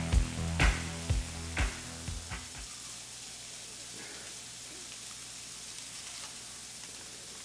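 Background music with a steady beat of about two thumps a second, fading out about two and a half seconds in. After it, a steady faint sizzle of food frying in a pan.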